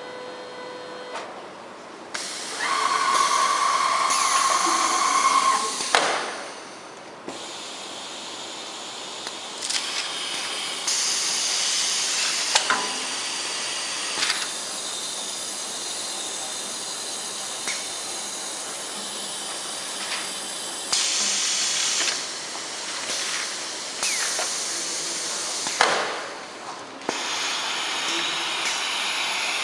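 CTP machine running: a steady hiss of air and mechanical whir from the plate transport, jumping up and down in level every few seconds. A high whine sounds from about two to six seconds in, and there are a few faint clicks.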